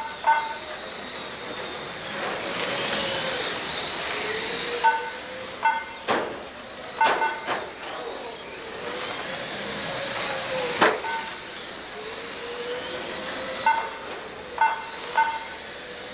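Radio-controlled model cars racing, their motors whining high and sliding up and down in pitch as they speed up and slow. Several sharp clacks, the loudest about 11 seconds in, and short repeated double beeps are heard along the way.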